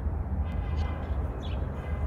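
Wind buffeting the microphone in a heavy, steady low rumble, with a few short bird chirps over it in the second half.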